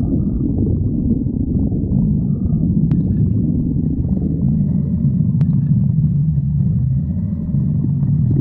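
A hungry stomach growling: a continuous low rumbling and gurgling, with two faint clicks about three and five and a half seconds in.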